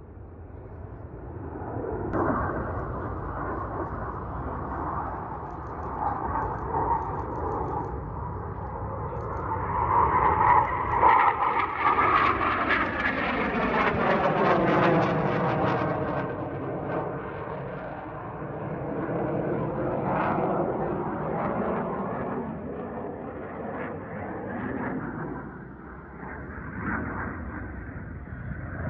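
Northrop F-5E Tiger II fighter jets flying an aerobatic display, their twin turbojet engines roaring. The noise swells to its loudest between about ten and sixteen seconds in as a jet passes overhead, with a sweeping, phasing pitch. It then eases off and swells again around twenty seconds in.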